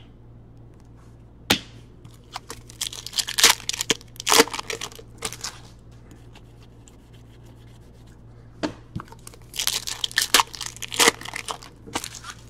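Foil trading-card pack being torn open by hand, its wrapper crinkling. The tearing and crinkling come in two spells, the first ending about halfway through and the second starting a few seconds later.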